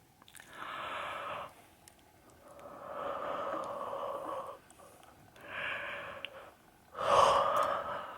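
A person yawning: four long, breathy yawning breaths in a row, the last the loudest.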